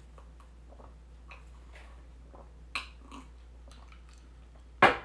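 Small clicks and rustles of people eating and handling takeout food and containers, with a sharper knock partway through and a loud sudden knock near the end, over a steady low hum.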